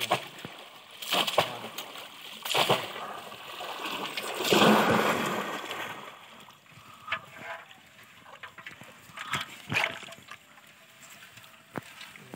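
Splashing in shallow muddy water as bamboo cone fish traps are plunged down and hands grope inside them: a run of sharp splashes in the first few seconds, a longer, louder churning splash about four to six seconds in, then smaller scattered splashes.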